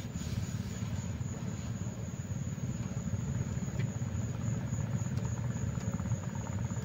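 A steady low rumble, with one faint click a little before the four-second mark.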